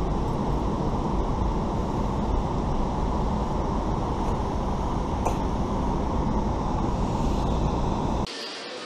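Steady rush of the river flowing past a dam spillway, a heavy, even low roar with no distinct events. It cuts off abruptly near the end.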